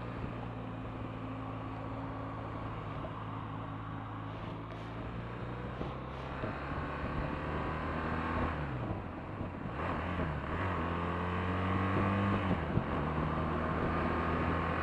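BMW R1200RT's boxer-twin engine running under way, holding a steady note for about six seconds, then dropping and climbing in pitch twice as the bike accelerates, getting a little louder toward the end.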